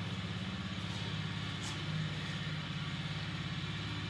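Tao Snowmax 170cc snowmobile's single-cylinder four-stroke engine idling steadily, with a fast, even putter.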